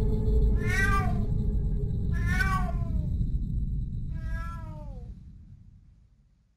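Kitten meowing three times, short calls rising then falling in pitch about a second and a half apart, the third longer and sliding down. A low background rumble fades out beneath them.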